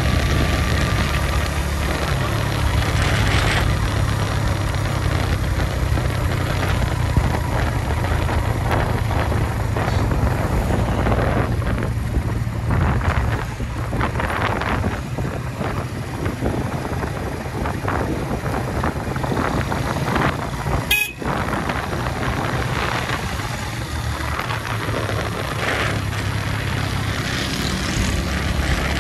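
Suzuki GS150 single-cylinder four-stroke motorcycle engine running steadily under way, with rushing noise over it and a vehicle horn tooting at times.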